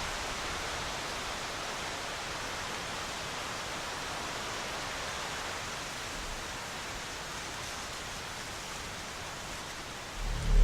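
Steady hiss of strong wind blowing through the trees, even and unbroken. Music starts just before the end.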